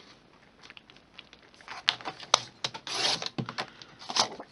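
Fiskars sliding paper trimmer cutting white cardstock: paper handling and scattered clicks as the card is positioned, then short scraping swishes as the blade is drawn along the rail.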